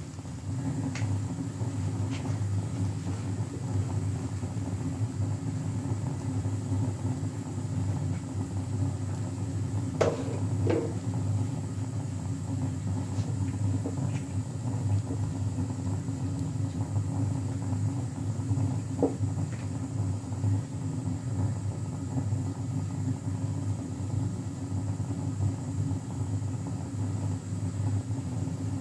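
Stove running steadily under a tawa with a paratha cooking on it: a continuous low rumble. A few light clicks come about a third of the way in and again after about two thirds.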